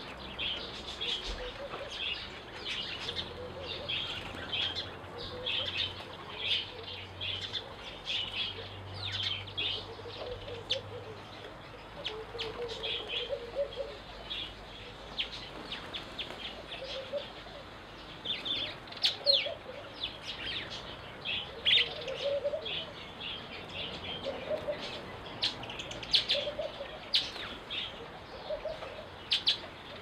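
Small garden birds (weavers, sparrows and bulbuls) chirping busily around a feeder, a steady stream of short high chirps, with wings fluttering as they land and take off. A lower call repeats now and then in the background, from about halfway through.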